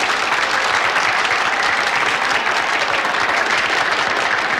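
Audience applauding: many hands clapping steadily in a dense, even patter.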